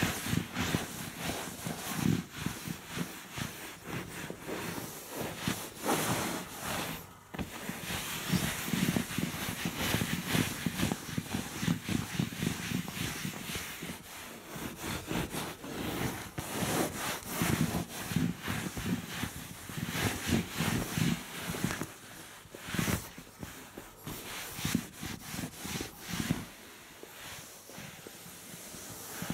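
Microfiber cloth rubbed back and forth over leather sofa upholstery in repeated strokes, buffing in body lotion used as a leather conditioner. The rubbing eases off near the end.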